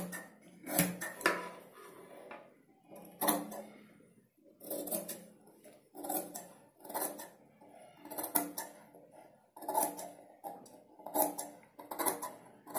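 Large steel tailor's shears cutting through cotton fabric: a series of crisp metallic snips at uneven intervals, roughly one a second, as excess fabric is trimmed off stitched strips.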